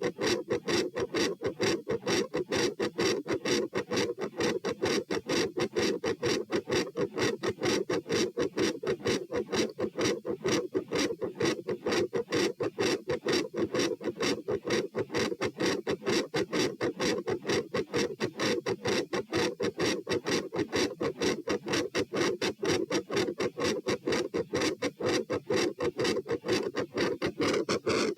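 Heart sounds heard through a stethoscope at the pulmonary area: loud, fast S1 and S2 in a fast, even rhythm, with a murmur. This is tachycardia on standing.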